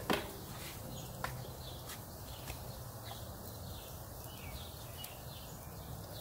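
Outdoor background with faint bird chirps over a low steady hum, broken by a sharp knock at the start and a lighter one about a second later.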